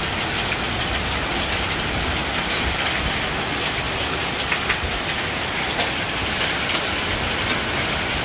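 Heavy rain mixed with hail pelting a corrugated metal roof and rooftop solar panels: a steady hiss dotted with sharp ticks of hailstones striking.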